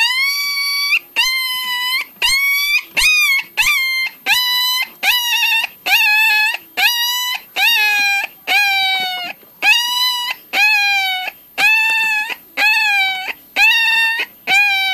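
A puppy crying over and over in distress while trapped in a bicycle wheel: high-pitched yelping cries in quick succession, about one to two a second, each lasting under a second.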